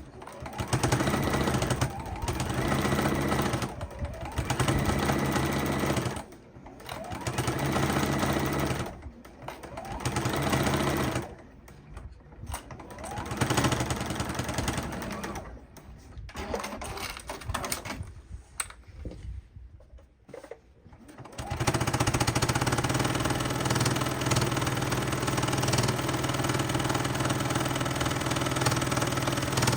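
Sewing machine stitching in a series of short runs of a second or two with brief stops between, choppier in the middle, then one long steady run near the end.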